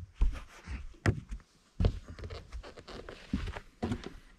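A series of irregular knocks and thumps, about six in four seconds, from a person moving about on a bass boat's carpeted deck.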